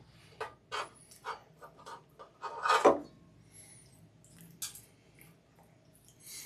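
Light clicks and taps of kitchen utensils, about three a second for the first two seconds, then a louder, longer rustle near three seconds and a few scattered taps.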